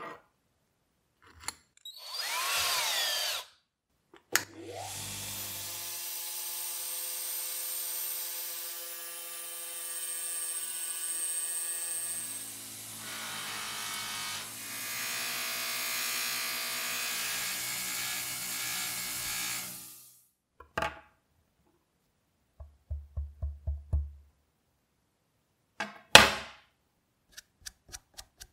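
Bench buffing machine running steadily for about fifteen seconds, its cloth polishing wheel being charged with a bar of polishing compound. After it stops come a quick run of about six taps and then a single sharp click.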